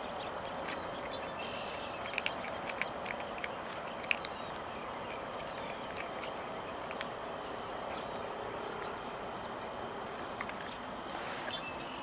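Outdoor ambience: a steady background hiss with scattered short clicks and faint bird chirps, the clicks bunched together between about two and four seconds in.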